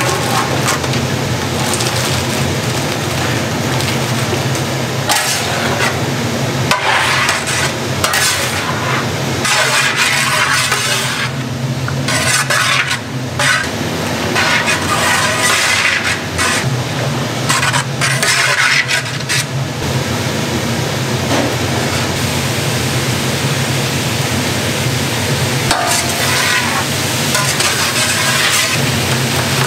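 Food being stir-fried in a large pan: sizzling, with the scrape and clink of metal utensils coming in irregular bursts over a steady low hum.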